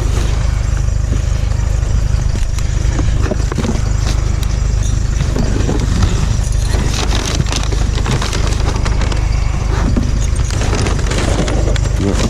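Clunks, knocks and rustles of discarded items being handled and shifted while rummaging through boxes of curbside junk, over a steady low rumble. The knocking is busiest from about five to eight seconds in.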